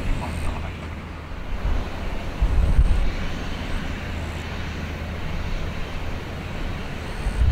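Airbus A350-900 airliner taxiing: a steady low rumble as it rolls along the taxiway, with a heavier low bump about two and a half seconds in and another near the end.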